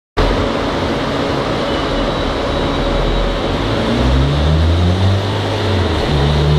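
Fiat Grande Punto's 1.2 8-valve four-cylinder petrol engine running on a chassis dynamometer under a loud, steady rush of noise. From about four seconds in the engine note climbs as revs and roller speed rise.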